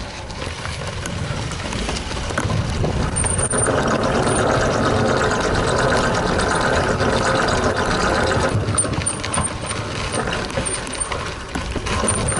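Wind rushing over a handlebar-mounted action camera while a Trek 920 gravel bike rolls over a dirt and gravel trail, its tyres crunching, with small knocks from the rough surface. The rush swells about two seconds in and eases again later.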